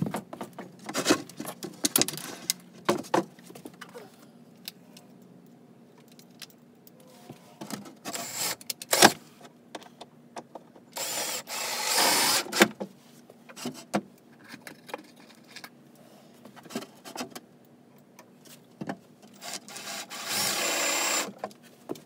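Ryobi cordless drill running in three short bursts, the longest about a second and a half, as it works into plywood, with scattered knocks and clatter of wood and tools between.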